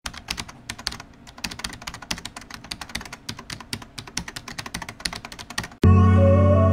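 Rapid, irregular computer-keyboard typing clicks. About six seconds in they stop abruptly and music with sustained piano or synth chords begins.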